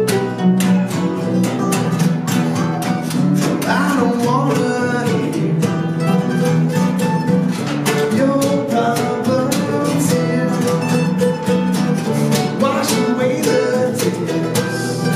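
Live acoustic duo: a steel-string acoustic guitar strummed rhythmically over an acoustic bass guitar line. A man's voice sings briefly around four seconds in and again near the end.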